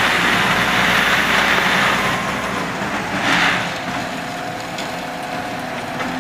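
Large mining wheel loader's diesel engine running as its bucket dumps a load of rock into a steel hopper, the material pouring in with a steady rush of noise that swells about three seconds in.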